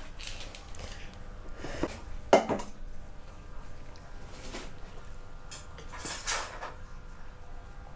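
A few separate knocks and clatters of kitchen containers being handled and set down around a stainless steel sink counter, the loudest about two and a half seconds in.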